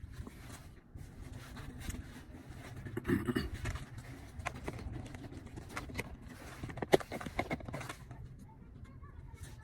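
Handling noise of a leather shift boot and its plastic retaining clip being fitted: rustling with scattered plastic clicks and knocks, the sharpest click about seven seconds in.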